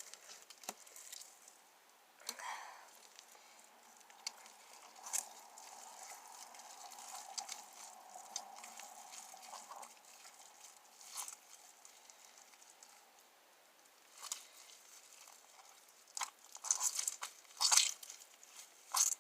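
Homemade slime being squeezed and pulled apart by hand: quiet, sticky, wet squishing and tearing sounds, with a run of louder ones near the end. The slime has gone bad and rips instead of stretching.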